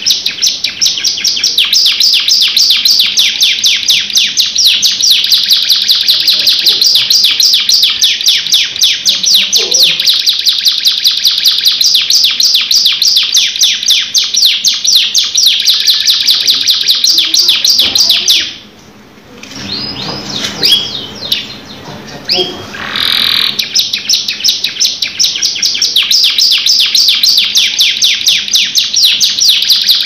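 Domestic canary in full song: a long, loud rolling song of fast repeated trill notes. Past the midpoint it breaks off for a few seconds with only soft notes, then takes up the rapid trilling again.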